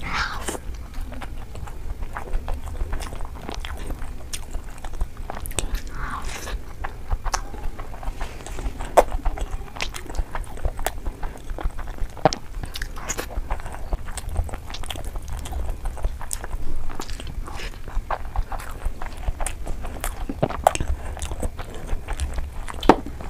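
Close-miked eating sounds: chewing and wet mouth clicks, fingers working curry into rice, and sharp crunches of crisp papad, in a dense run of short clicks over a steady low hum.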